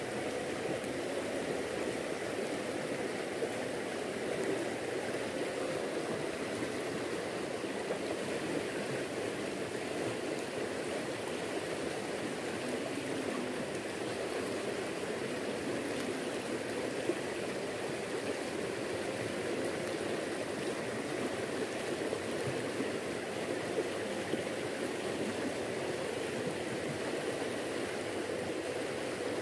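Fast-flowing river current, a steady, unbroken rush of water.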